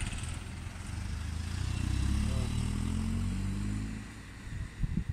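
A motor vehicle's engine passing by, swelling to a peak about two seconds in and fading away by four seconds, followed by a few brief low thumps near the end.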